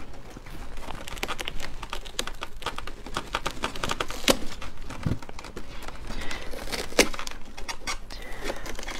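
Fingers digging into and tearing crisp, juicy watermelon flesh and rind: a dense run of wet crackles and snaps close to the mic, with a couple of sharper snaps.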